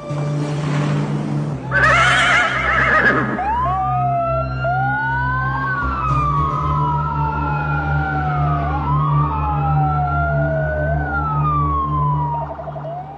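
Several police sirens wailing at once, their pitches rising and falling slowly and overlapping, with a short fast warble near the end. They follow a brief high screech about two seconds in, over a steady low drone.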